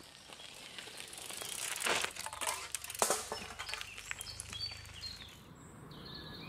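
Mountain bike tyres rolling over a leaf-strewn gravel forest path, the sound building as the bike passes close, with a few sharp crunches and clicks about two to three seconds in. Birds chirp in the second half.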